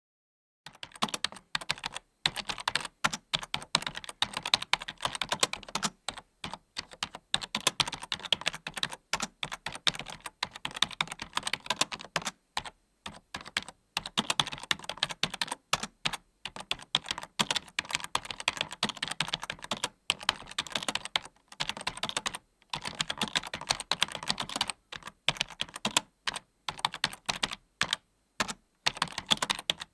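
Computer keyboard being typed on quickly, a dense run of key clicks with short pauses here and there.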